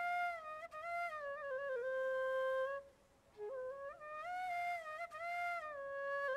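Solo flute playing a slow melody of held and gliding notes, in two phrases with a short break about three seconds in.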